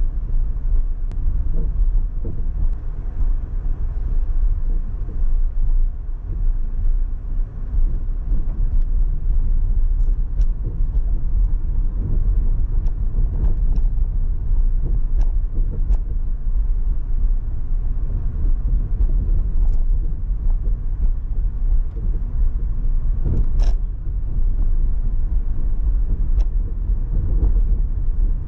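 Car driving on city streets: a steady low rumble of road and engine noise, with a few faint ticks and one sharper click about 23 seconds in.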